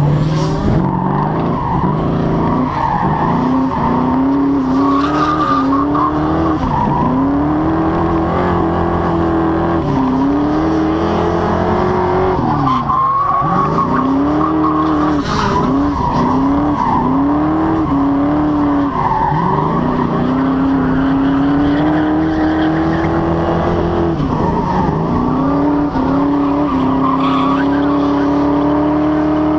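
Foxbody Mustang's 5.0 (302) V8 revving hard, its pitch climbing and dropping every few seconds as the car is held in a slide, with tires squealing and skidding on the pavement.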